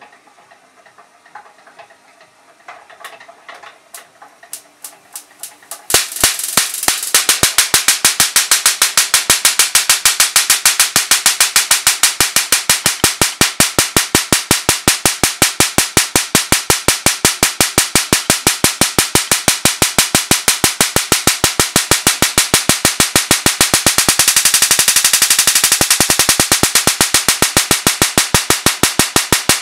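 Bonetti electrostatic generator firing repeated spark discharges across its spark gap, a steady train of sharp cracking snaps several times a second. Faint crackling builds over the first few seconds, and the loud, even sparking starts about six seconds in.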